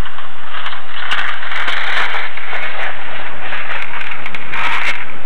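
Strong wind blowing across the microphone: loud, steady noise that swells twice in gusts, with some crackle.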